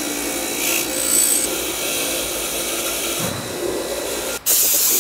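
Bench grinder's wire-brush wheel running with an engine oil cooler pressed against it, scraping old dried gasket residue off the sealing face. About four and a half seconds in the grinding cuts off and a loud hiss of aerosol brake cleaner spray follows.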